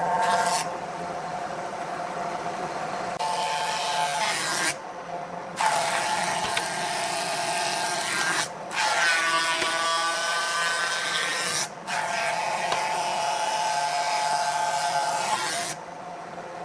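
Wood lathe running with a steady whine while a turning tool cuts the spinning wood, in several short stretches that cut off abruptly.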